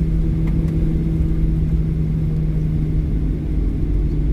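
Steady low rumble with a constant hum inside the cabin of a Boeing 737-800 taxiing after landing, its CFM56 engines at idle.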